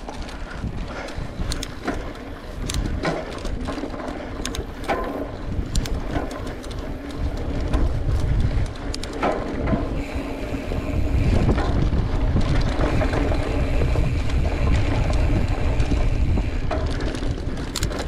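Wind buffeting the microphone while riding a mountain bike along a dirt trail, with frequent clicks and rattles from the bike jolting over bumps. It gets louder about halfway through.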